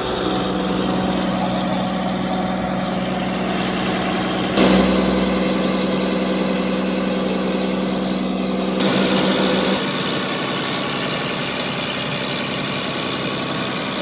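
125 kVA Ashok Leyland generator's turbocharged diesel engine running steadily under load testing. Its sound changes abruptly and gets louder about four and a half seconds in, then shifts again about nine seconds in.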